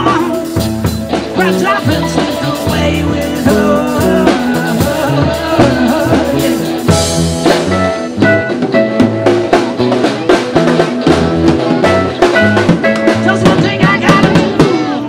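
Live rock band playing: electric guitars, bass and drum kit, the drums keeping a steady beat.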